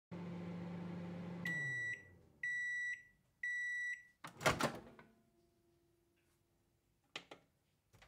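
Microwave oven running with a steady hum that stops, then three high-pitched end-of-cycle beeps about a second apart, followed by a loud clunk of the door popping open and a couple of short clicks near the end.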